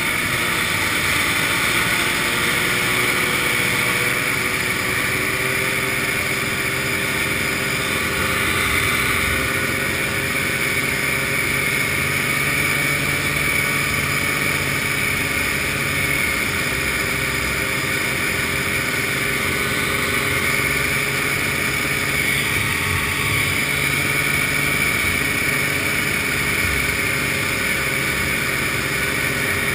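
Vintage snowmobile's two-stroke engine running steadily at cruising speed under a continuous rush of wind and road noise.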